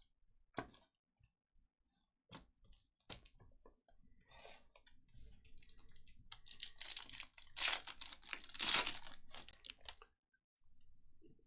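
A few scattered clicks, then a trading card pack's foil wrapper being torn open and crinkled, the crinkling loudest in the second half.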